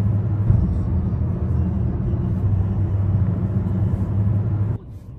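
Steady low rumble of road and engine noise inside a moving car at highway speed, cutting off suddenly near the end.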